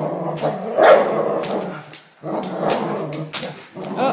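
Two Entlebucher Mountain Dogs growling in play as they tug on a toy: a rough, continuous growl that breaks off briefly about halfway through.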